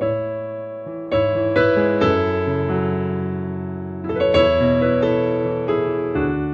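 Solo piano playing slow, sustained chords; new chords are struck about a second in, again around four seconds in and near the end, each left ringing and slowly fading.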